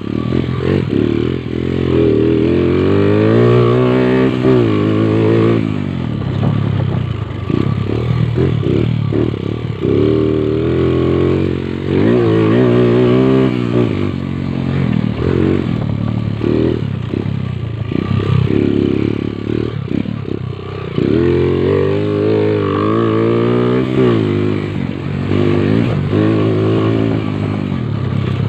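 Motorcycle engine running and revving, its pitch rising and falling again and again every few seconds.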